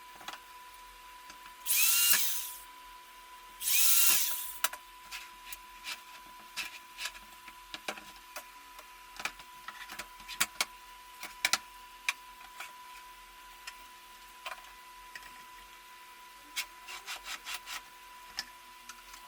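Electric hand drill run in two short bursts about a second each, its motor whine rising as it spins up. After the bursts come many light, scattered clicks and knocks.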